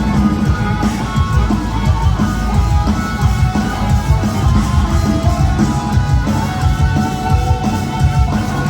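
Live heavy metal band playing at full volume: a lead electric guitar carries a held, singing melody over distorted rhythm guitar, bass and a busy drum kit.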